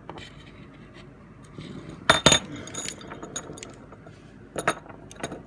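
Sharp clicks and clinks of a metal screwdriver prying inside a plastic toy's ratchet joint, pulling the ratchet cube aside to leave a gap. The loudest cluster comes about two seconds in, with a few lighter clicks near the end.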